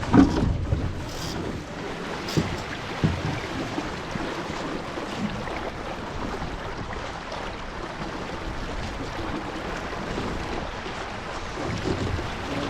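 Water rushing and slapping along a Melges 15 sailing dinghy's hull under sail, with wind buffeting the microphone, and a few short knocks in the first few seconds.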